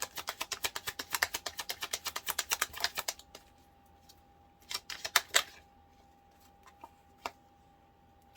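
A deck of cards being shuffled by hand: a fast run of card clicks, about ten a second, that stops about three seconds in, followed by a few scattered card flicks and taps.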